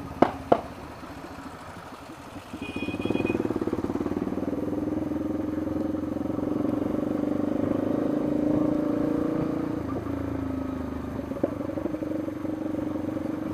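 Yamaha Lander 250's single-cylinder engine, running quietly for about three seconds and then pulling steadily under throttle as the bike rides on. A short high-pitched beep sounds about three seconds in.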